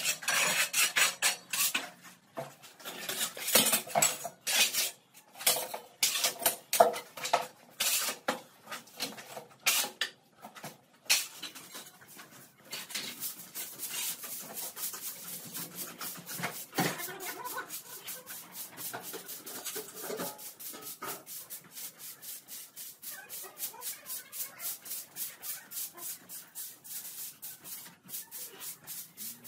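A straw broom sweeping a dusty concrete floor in quick, regular strokes, about two or three a second. For the first dozen seconds, irregular loud clattering and scraping.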